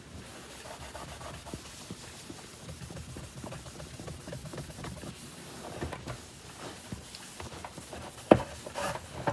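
Rubbing and wiping on the body of a Kenmore upright vacuum to work smudges off its surface, a steady scrubbing with small ticks. A single sharp knock comes near the end.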